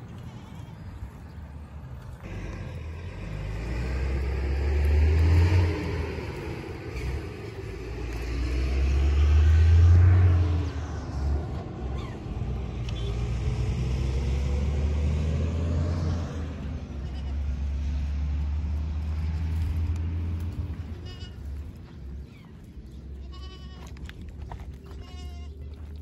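A herd of goats moving over stony ground, with several goats bleating near the end. A loud low rumble runs under most of it, swelling twice and fading out a few seconds before the end.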